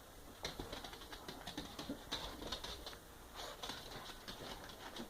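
Faint, irregular light clicks and taps of a dog's claws on a hard floor as it moves about.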